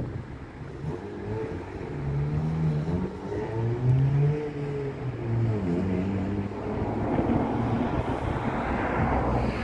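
A road vehicle's engine passing, its pitch rising and falling over a few seconds. Near the end a rushing wind and water noise builds.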